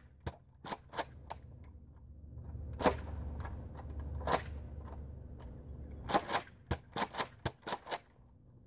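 Nerf N-Strike Elite Rampage blaster clicking as it is worked: a few scattered sharp clicks, then a quick run of about nine near the end. The blaster is jammed and won't fire.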